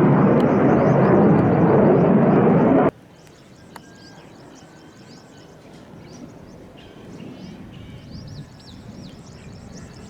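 Military jet engine noise, a loud even rush, that cuts off abruptly about three seconds in. Then quiet outdoor ambience with small birds chirping.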